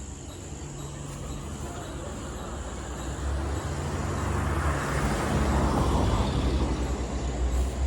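A motor vehicle driving past on the road, its engine and tyre noise growing louder from about three seconds in and peaking near the end, over a steady high chirring of insects.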